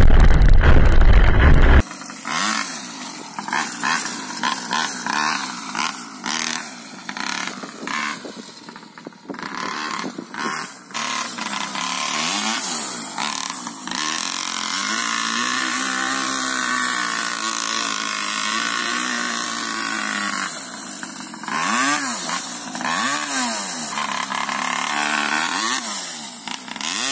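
Small 49cc two-stroke pocket-bike engine in a homemade RC buggy, buzzing and revving. For about the first two seconds it is a loud, close rumble heard from on board. After that it is heard from off the car: a steady high-pitched run in the middle, then several quick revs rising and falling in pitch near the end.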